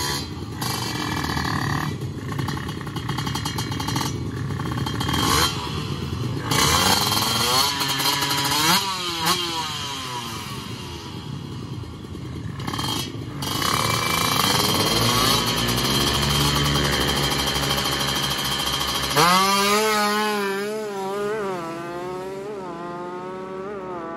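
Drag-racing motorcycle engine revved hard in repeated blips, then held at high revs. About nineteen seconds in the bike launches and pulls away, its pitch climbing and dropping through several quick gear changes as it fades off down the straight.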